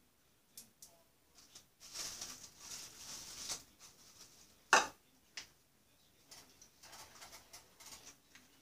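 Kitchen handling sounds: soft rustling, a single sharp clink about halfway through, then light scraping and tapping of a wooden spoon stirring pasta in a skillet.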